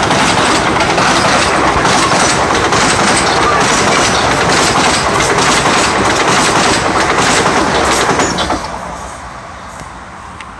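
Class 444 Desiro electric multiple unit passing close by, wheels clattering over the rail joints in a steady run of clicks over a loud rumble. About eight and a half seconds in it suddenly gets quieter and fades as the train draws away.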